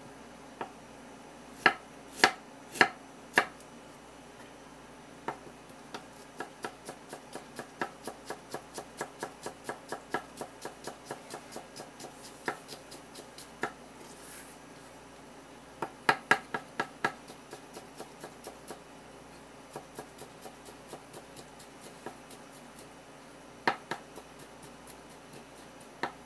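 Kitchen knife chopping and mincing ginger on a wooden cutting board. A few loud knocks near the start, then runs of quick, even taps at about three a second, broken by louder groups of strikes.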